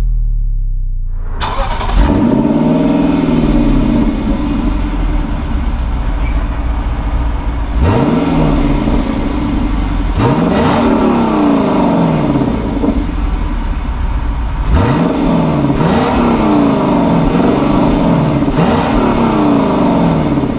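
Lexus LC500's naturally aspirated 5.0-litre V8 and exhaust starting up about a second in, then idling and being revved in a series of short blips, each rising and falling in pitch.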